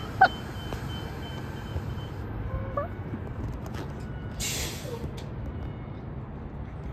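MARC commuter train pulling away down the line, a steady low rumble, with a sharp brief chirp just after the start and a short hiss about four and a half seconds in.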